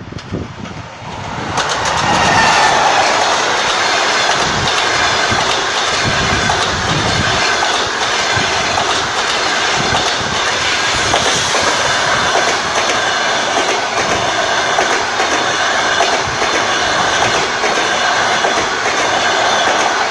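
An EP20 electric locomotive with a passenger train passing close by without stopping. The sound jumps up about a second and a half in as the train reaches the microphone. Then the coaches' wheels keep up a loud, steady rumble and clatter on the rails.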